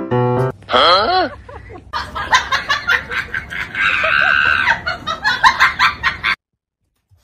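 People laughing and exclaiming in quick bursts, with a high drawn-out cry in the middle; it cuts off suddenly near the end.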